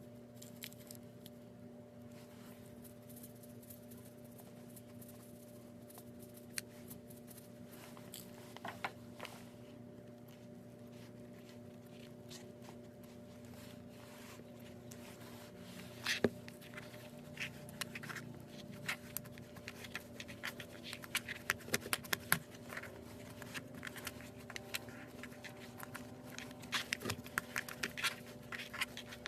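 Hands squeezing and poking slime: scattered small sticky clicks and pops, sparse at first and coming thick and fast in the second half, over a steady low hum.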